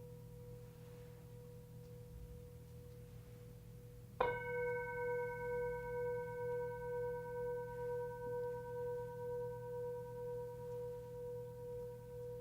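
Tibetan singing bowl: the fading ring of an earlier strike, then the bowl is struck again about four seconds in. It rings on with several overtones and a slow, wavering pulse as it decays.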